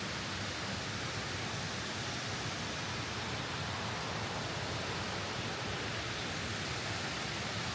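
Steady, even rushing noise with no distinct events, typical of outdoor ambience such as running water or wind.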